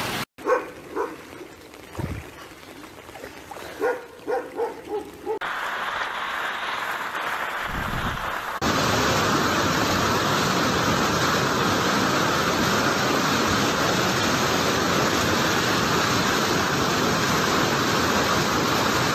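Fast-flowing brown floodwater rushing past a concrete wall: a loud, steady rush of water that starts abruptly about nine seconds in. Before it comes a quieter stretch with a few short, pitched calls.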